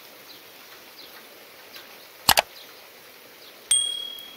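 Two quick clicks about two seconds in, then a bright bell ding that rings out near the end: the sound effects of a YouTube subscribe-button animation. Under them, faint steady rain.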